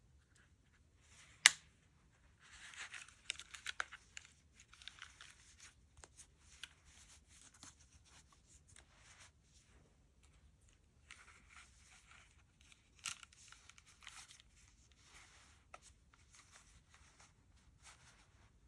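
Rustling and crinkling handling noises in two stretches, with two sharp clicks, the first about one and a half seconds in and the loudest.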